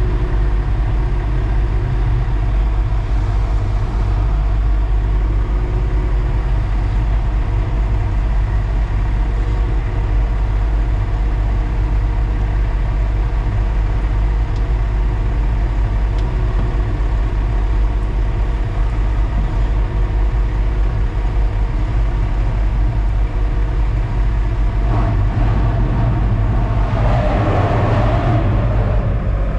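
Concrete mixer truck's diesel engine running steadily, heard from the truck. Near the end a louder, rougher noise joins in.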